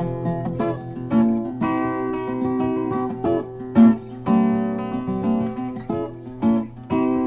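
Background music of an acoustic guitar playing plucked and strummed chords.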